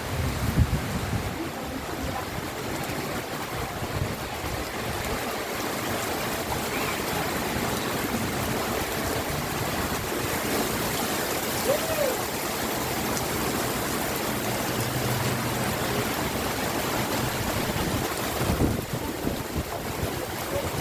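Heavy rainstorm: dense rain pouring down in a steady rush. There are a few low thumps in the first second.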